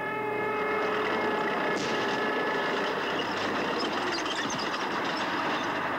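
BMP-1 tracked infantry fighting vehicle on the move: its diesel engine running with a steady, dense clatter and rumble from the tracks.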